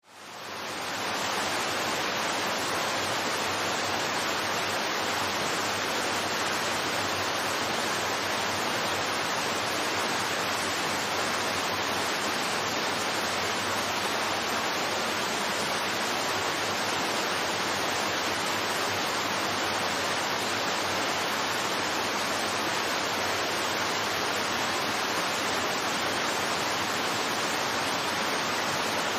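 Water pouring down the Cheonggyecheon waterfall in a steady, even rush. It fades in over the first second.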